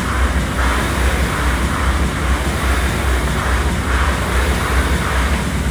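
Air rowing machine's fan flywheel whooshing under hard rowing, the rush swelling with each pull about once a second, over a steady low rumble.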